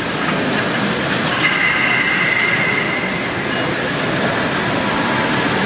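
Tram running on its track with a steady rolling noise, and a high wheel squeal from about one and a half to three seconds in.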